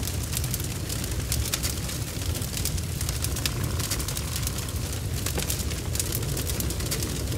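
Steady low rumbling with scattered crackles and pops throughout: an erupting-volcano and lava sound effect.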